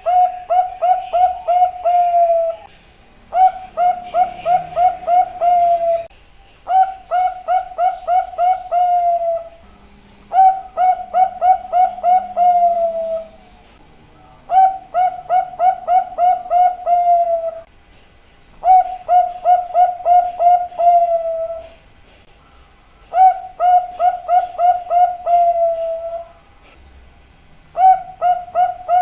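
Zebra dove (perkutut) singing its cooing song: a phrase of six to eight quick staccato coos that ends in a longer, slightly falling note, repeated about every four seconds, eight times.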